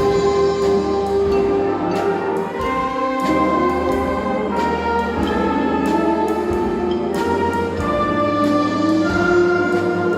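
Concert band playing live: brass and woodwinds holding sustained chords that change every second or two, with occasional percussion strikes.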